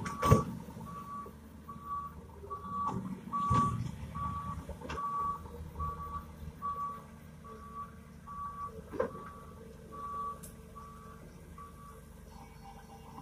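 Reverse-warning beeper of a Mitsubishi Canter dump truck beeping about twice a second as the truck backs up, over the low rumble of its diesel engine; the beeping stops near the end. A few sharp knocks stand out, the loudest just after the start, another at about a third of the way and one about two-thirds in.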